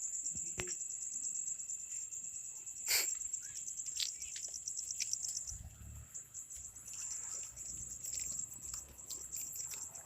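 Crickets trilling steadily at a high pitch, growing fainter about six seconds in, with one sharp click about three seconds in.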